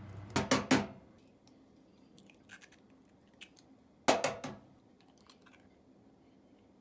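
Two quick clusters of sharp clicks and knocks, hard objects tapping together, three or four clicks each, about a second in and again about four seconds in, with a few faint ticks between.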